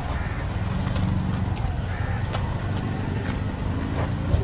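Steady low rumble of a car engine running close by, with scattered sharp clicks over it.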